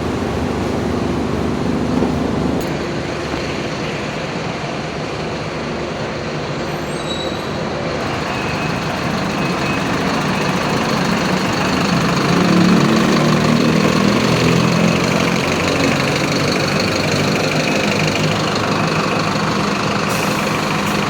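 Mercedes-Benz OF-1721 city bus's diesel engine running, heard from inside the bus. It swells louder about twelve seconds in, then settles.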